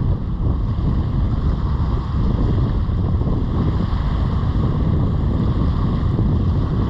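Wind buffeting the microphone, a steady low rumble, with ocean surf behind it.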